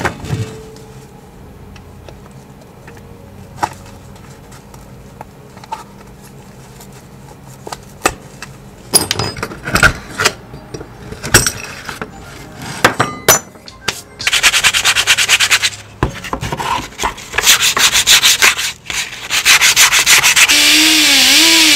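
Sandpaper rubbed by hand over a rusty metal bicycle part in quick, regular back-and-forth strokes, after a quieter stretch of light clicks and knocks from metal parts being handled. Near the end a power tool starts up with a wavering whine.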